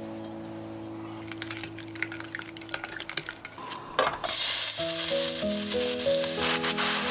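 A wooden spoon stirs a sauce in a glass bowl with light scraping clicks. About four seconds in, thin-sliced pork belly goes into a hot pan and starts sizzling loudly and steadily. Music plays underneath throughout.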